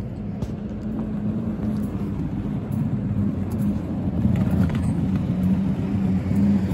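City road traffic: a steady low engine rumble from vehicles on the street, growing slowly louder.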